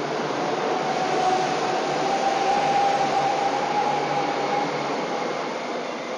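E1 series 'Max' double-deck Shinkansen train running past close by: a dense rushing, rolling noise that swells over the first couple of seconds and fades as the end car goes by, with a steady whine on top through the middle.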